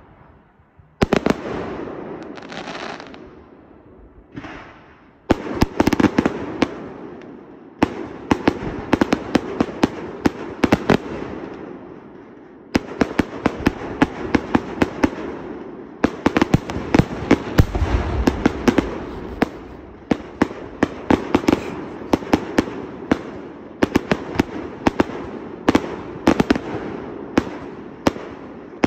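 A fireworks display firing in rapid volleys: many sharp bangs and cracks overlapping over a continuous crackle, with a fresh volley starting every few seconds. There are a few whooshes near the start.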